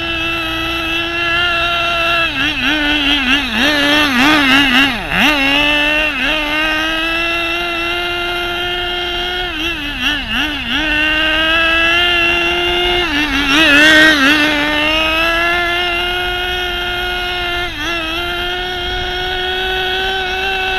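Tamiya TG10 Mk.1 RC car's small nitro glow engine running at high revs, its pitch mostly steady. In a few short stretches it wavers quickly up and down as the throttle is blipped, loudest about two-thirds of the way in.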